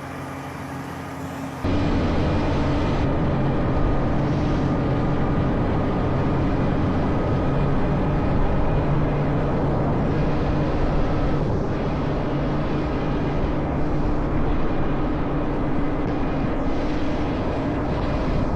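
Claas Lexion 8900 combine harvester running, a steady heavy diesel drone that jumps sharply louder about one and a half seconds in and then holds.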